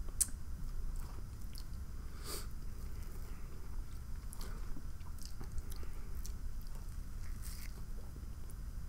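A person chewing food close to the microphone, with scattered soft bites and mouth clicks.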